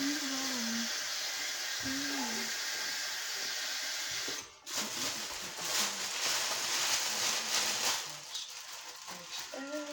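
Tap water running in a steady hiss as a plastic trash bag is filled, shut off abruptly about four and a half seconds in, followed by a few seconds of irregular handling noise. A few hummed notes come at the start, around two seconds in and near the end.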